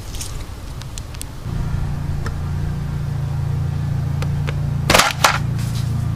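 Rat-trap springs inside a homemade lunch-pail airsoft claymore snapping twice in quick succession about five seconds in as the mine is tripped. A steady low drone starts about a second and a half in and runs underneath.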